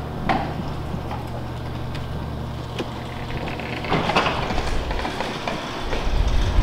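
Motorised sectional garage door opening: a steady low hum, a short rattle about four seconds in, and a louder low rumble starting near the end as the door rises.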